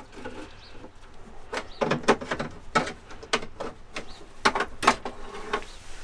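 Hard plastic cover of a diesel heater being handled and lifted off, giving a series of separate clicks and knocks with light rubbing between them.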